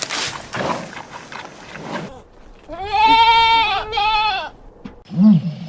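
A farm animal bleats: one long wavering cry of about a second, then a shorter one, after about two seconds of rough, noisy sound. Near the end a lower, arching call begins.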